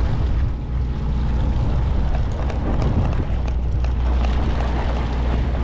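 A large fishing boat's engine running with a steady low drone, under a hiss of wind noise.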